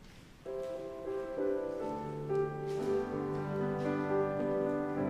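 Instrumental introduction to a hymn on a keyboard instrument, starting about half a second in with held, sustained chords.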